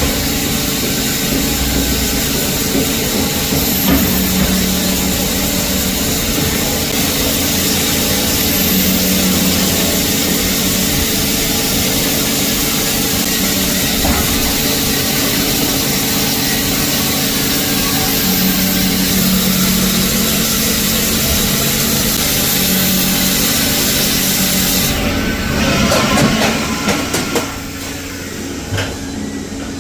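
CNC milling machine with a 4 mm end mill cutting teeth into hardened steel (case-hardened, quenched and tempered to 58 HRC): a steady, loud hiss of cutting and machine noise. About 25 seconds in the hiss stops, a few knocks follow, and it goes quieter near the end.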